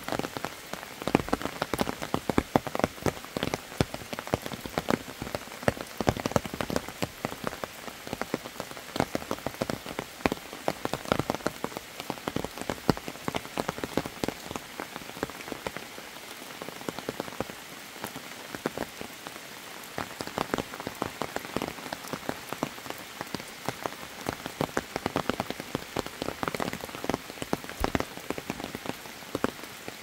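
Steady rain: a dense patter of individual drops ticking close by over an even hiss.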